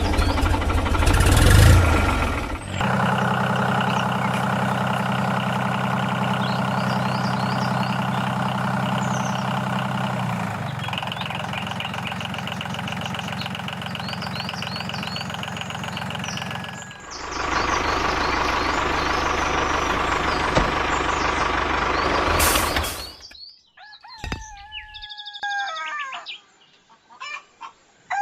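A small engine running steadily, its pitch and tone changing abruptly a few times. About three-quarters of the way in it stops, and birds chirp.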